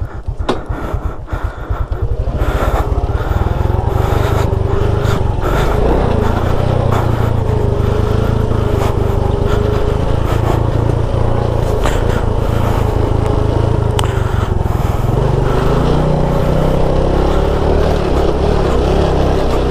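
Small motorcycle engine running while riding over a rough dirt road, getting louder about two seconds in and then holding on with its pitch rising and falling, over a deep steady rumble and a few sharp knocks.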